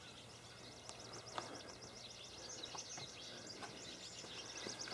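Faint outdoor quiet with a bird singing a long run of quick, high, repeated notes, and a few soft clicks.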